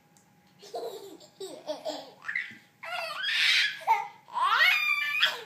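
Young children laughing in short bursts, louder and higher-pitched in the second half.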